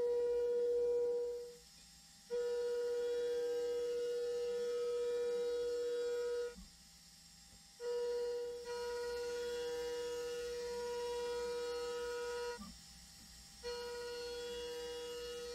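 CNC milling cutter finishing an aluminium workpiece: a steady humming tone with overtones that breaks off three times for about a second each and then resumes.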